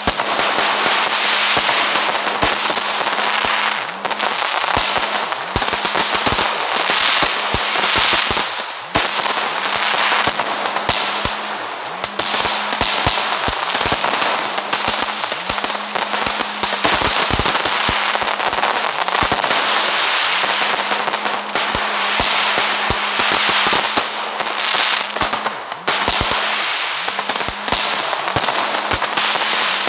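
Fireworks crackling and hissing without a break, dense with many sharp pops.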